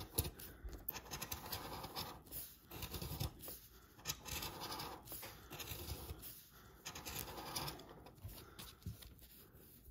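Plastic scratcher tool scraping the coating off an instant lottery scratch ticket in uneven strokes.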